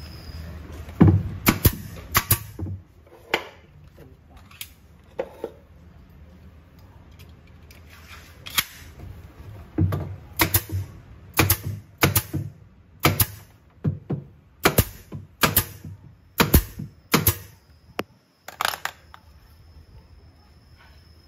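Pneumatic nail gun firing nails into the wooden panels of a subwoofer cabinet: a string of sharp shots, a few spaced out at first, then a quicker run of about one or two a second.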